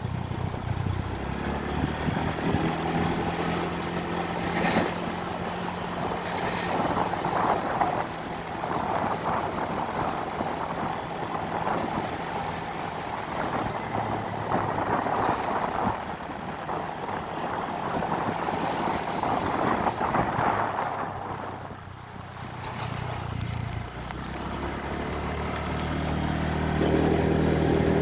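Small petrol engine running steadily with a rushing noise. It dies down about 22 seconds in and builds up again near the end.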